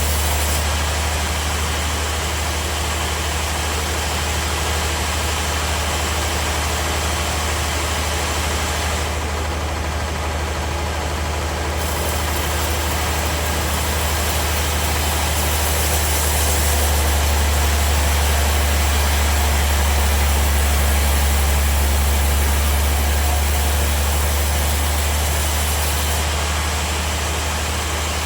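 Sawmill machinery running steadily with a deep, constant hum, growing a little louder partway through.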